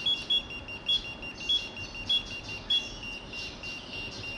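Kingsong S22 electric unicycle beeping as it starts its horizontal calibration after being switched on: six short, high beeps about 0.6 s apart over the first three seconds.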